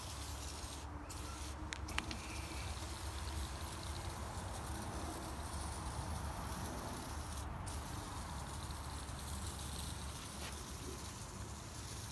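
Aerosol can of Easy-Off oven cleaner spraying in a long, steady hiss, with short breaks about a second in, near two seconds in and about seven and a half seconds in, where the nozzle is let go. A small click near two seconds.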